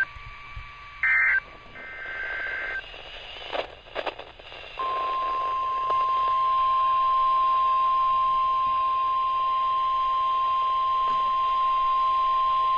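Emergency Alert System data tones over weather radio: a short warbling burst about a second in, closing the previous warning's end-of-message bursts, and another brief burst near two seconds. A few clicks follow, then from about five seconds in the steady single-pitched NOAA Weather Radio warning alarm tone that introduces the next warning.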